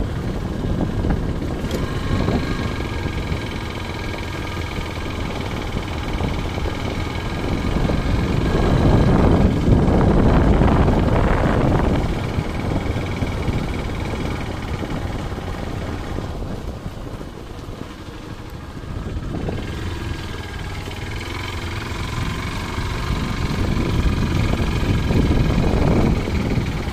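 Wind buffeting the microphone while riding a motorcycle along a road, with the engine running steadily underneath; the rush swells about a third of the way in and again near the end.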